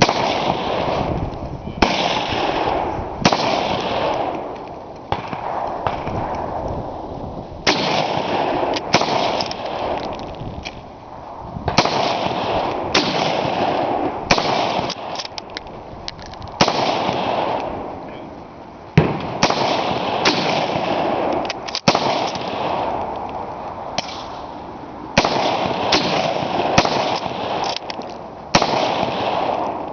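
Gunshots fired one after another, about twenty in all, each with a long fading echo; some come only about a second apart.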